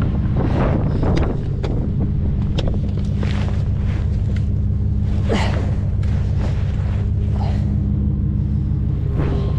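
A tow truck's engine running steadily, with scattered short knocks and scrapes over it.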